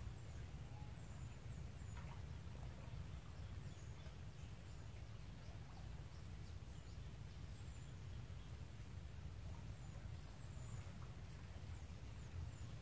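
Outdoor ambience: a high-pitched buzz repeating in pulses of roughly half a second to a second, fading out early and returning about four seconds in, over a constant low rumble, with a few faint short bird chirps.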